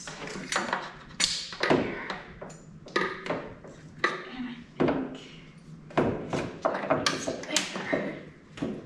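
Irregular metallic clinks, taps and knocks with a short ring: hand tools and metal fittings being worked against the engine bay while an oil catch can is forced onto its mount.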